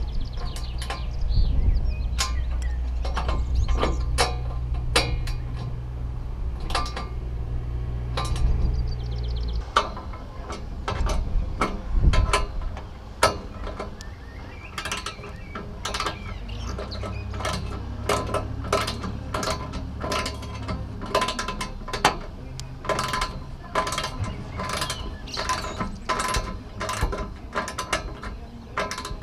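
Ratcheting spanner clicking as it tightens the roof-rack bracket bolts on a van roof, in a steady run of short clicks that comes thicker in the second half. A low rumble underlies the first third.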